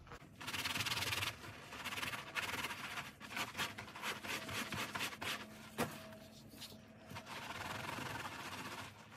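A soapy mesh cloth scrubbed hard back and forth over a fabric fencing-mask strap lying flat on a countertop, in repeated rubbing strokes. There is one short knock about two-thirds of the way through.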